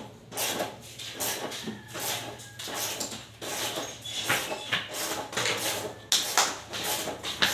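Hand tools working on metal parts in a car's engine bay: irregular scraping and clicking strokes, two or three a second, with a couple of sharper knocks about six seconds in.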